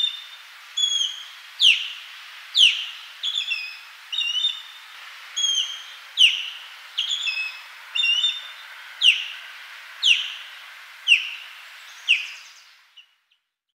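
Osprey calling: a series of sharp, high whistled calls, about one a second, some slurring steeply downward and others short doubled notes, fading out near the end.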